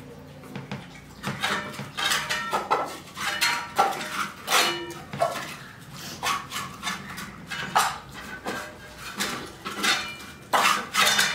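Eating sounds at the table: rice being mixed by hand with poppy-seed paste on plates and chewed, with small clinks of the plates, coming in short irregular bursts.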